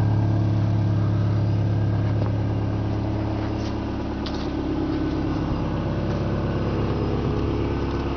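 Subaru Legacy's EJ22 2.2-litre flat-four engine idling steadily, a constant low hum that eases a little about two seconds in.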